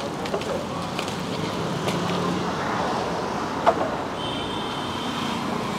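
Roadside street noise: steady traffic, with a sharp click about three and a half seconds in and a brief high steady tone near the end.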